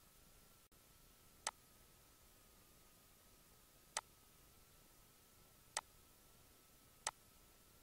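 Four sharp computer mouse clicks, a second or more apart, over faint hiss and a faint steady whine.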